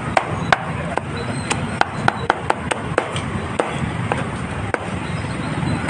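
A knife chopping on a cutting board at a food stall: about a dozen sharp, uneven knocks, fastest in the first three seconds and then sparser, over a steady hum of street noise.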